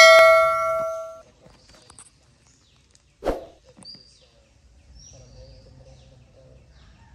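Notification-bell chime from a subscribe-button animation, a single ding ringing out and fading away over about a second. A short soft knock follows about three seconds in, then faint high chirps.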